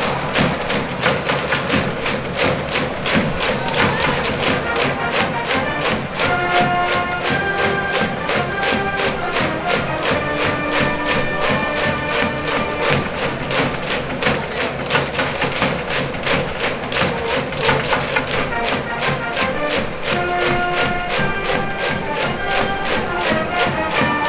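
High school brass band playing a baseball cheering song: a brass melody over a steady, driving drum beat.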